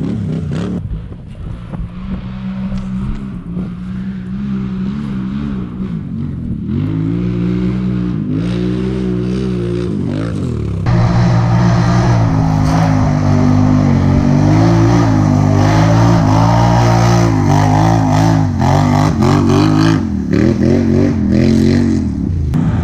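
ATV engine revving, its pitch rising and falling again and again under the throttle. Partway through, about eleven seconds in, it suddenly gets louder and fuller.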